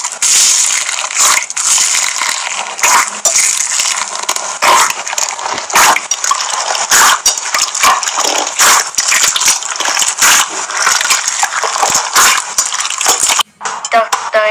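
Slime being squeezed and kneaded by hands in a bowl: continuous wet squelching with many small crackling pops. It cuts off briefly near the end.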